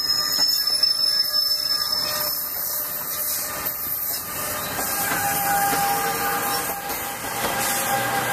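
New Jersey Transit Multilevel bi-level passenger coaches rolling past, their wheels running on the rails with a steady rushing noise. Faint whining tones sound over it: a high one in the first couple of seconds and a lower one from about halfway.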